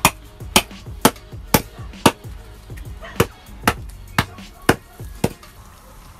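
Background music with a steady percussive beat, about two hits a second, skipping a beat near the middle and stopping near the end.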